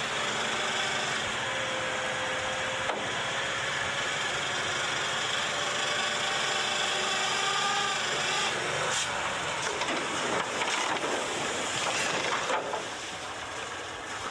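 An old dump truck's engine running as its hydraulic hoist raises the bed, with a faint whine that rises slowly. From about eight seconds in, irregular knocks and scraping as the truck tips over backward onto the raised bed, lifting its front end off the ground.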